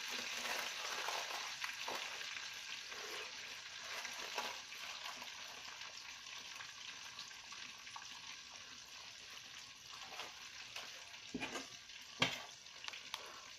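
Tilapia frying in hot oil in a pan: a steady, dense crackling sizzle that slowly softens. A few sharp knocks sound near the end.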